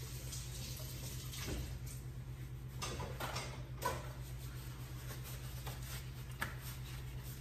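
Kitchen handling sounds: a few short rustles and knocks, the sharpest about four seconds in and another near the end, over a steady low hum.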